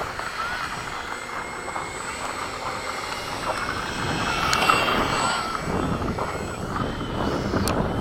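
Radio-controlled model jet flying overhead, a thin whine that bends up and down in pitch as it passes.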